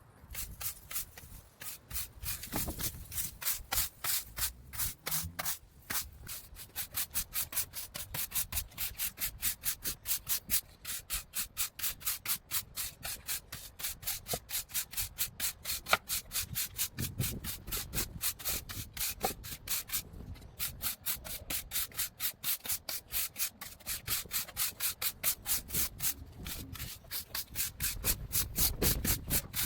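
Stiff brush sweeping sand across block paving to fill the joints, a steady rhythm of scratchy strokes at about two to three a second.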